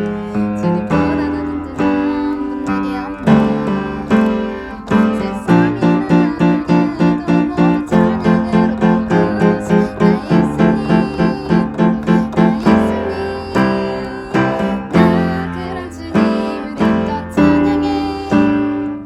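Acoustic guitar strumming the chords of a praise song, with quick, even strokes through the middle stretch.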